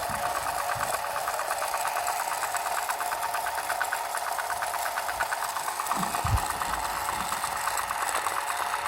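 A small electric motor running steadily with a fast, even mechanical whirr, with a brief low thump about six seconds in.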